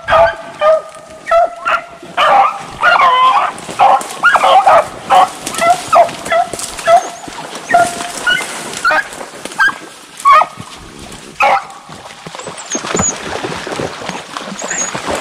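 A pack of beagles baying on the track of a rabbit, short cries coming thick and fast at first and then more spaced out. Near the end the baying stops and a steady rustle is left.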